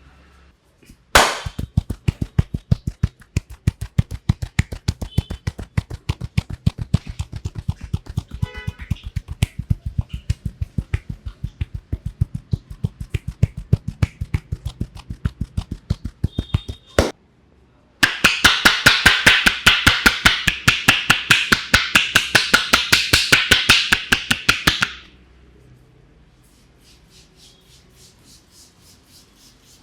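Rapid rhythmic hand strikes on the head in an Indian head massage. A long run of dull pats with a deep thud breaks off about halfway through. Then comes a faster, louder run of sharper clapping strikes, and after it faint light tapping.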